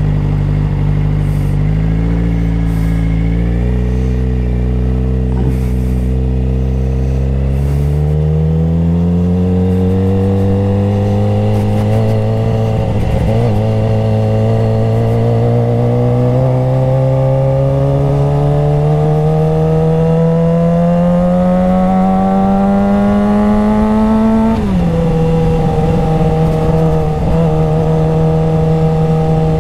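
Suzuki GSX-R sport bike engine heard from the rider's seat. It holds a steady note for the first several seconds, then rises slowly and evenly in pitch for about fifteen seconds. About three-quarters of the way in it drops suddenly and then runs steadily.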